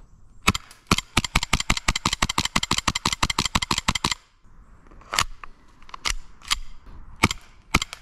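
Gas-blowback airsoft pistol fired in semi-automatic as fast as the trigger is pulled: two shots, a rapid string of sharp cracks with the slide cycling for about three seconds, then a pause and five more single shots. The shooter feels the cold weather is starting to take a toll on its response.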